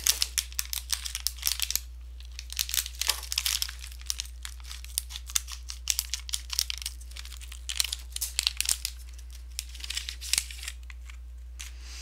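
Scissors cutting open foil anti-static bags, the metallised plastic crinkling and crackling in irregular clusters of sharp snips and rustles with short pauses between. A steady low hum lies underneath.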